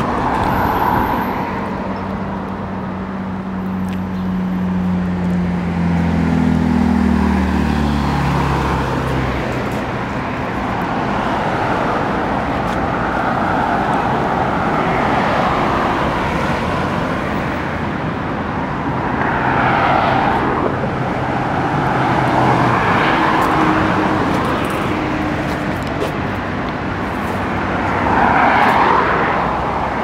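Road traffic: a steady wash of passing cars that swells several times as vehicles go by, with a low engine hum in the first several seconds that rises in pitch and then fades out.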